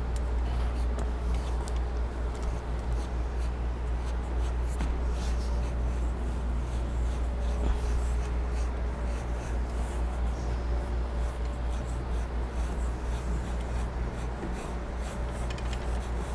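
Markers scratching across a painted board as two artists draw, over a steady low electrical-sounding hum with a few faint ticks and scrapes.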